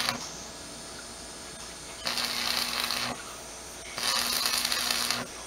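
Electric arc welding on steel rebar: the crackling hiss of the arc in bursts of about a second, with a low hum while it burns. One burst cuts off just after the start, and the arc strikes again about two seconds in and about four seconds in.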